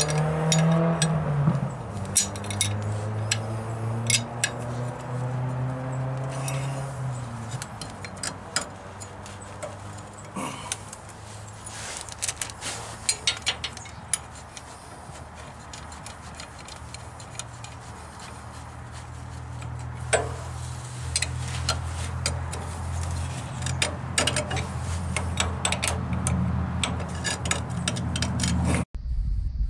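A steel wrench clinking and tapping against hydraulic hose fittings as they are tightened, in scattered metallic clicks, over a low steady drone.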